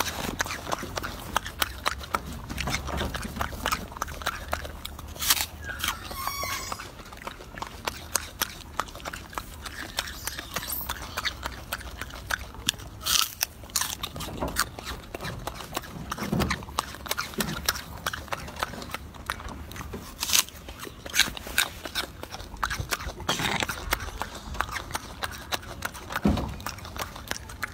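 Golden snub-nosed monkey biting and chewing a piece of apple close to the microphone: many short, irregular clicks and smacks of eating.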